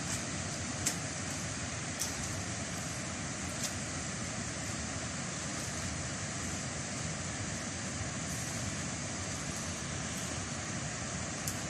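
Steady rush of water running along a narrow irrigation ditch, with a few faint light clicks as a hoe works the ditch bank.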